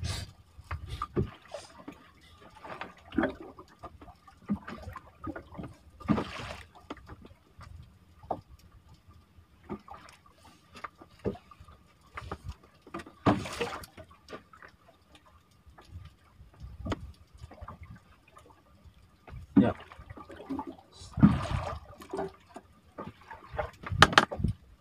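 Water lapping and splashing against the hull of a small wooden boat, with scattered short knocks on the boat, over a faint steady high tone.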